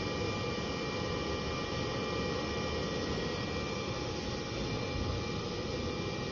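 Steady hum and fan noise of a running BGA rework station, with several faint steady whining tones over it.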